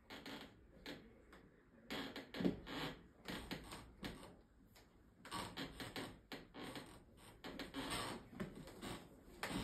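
Irregular short knocks, clicks and rustling in several bursts, from someone shifting and turning in heeled boots on a wooden floor.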